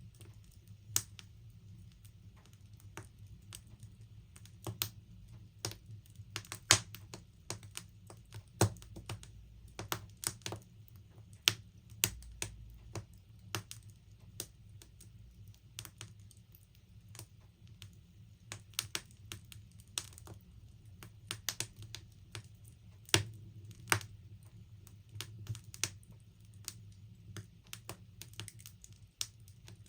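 Wood fire in a log burner crackling: irregular sharp pops and snaps, a few much louder than the rest, over a low steady rumble.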